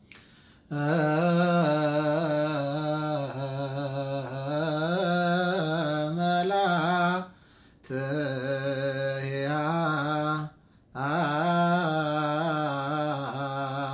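Solo male voice chanting an Ethiopian Orthodox Ge'ez abun hymn, unaccompanied, in long held notes with wavering melismatic ornaments. The chant comes in three phrases, with two short breaks for breath.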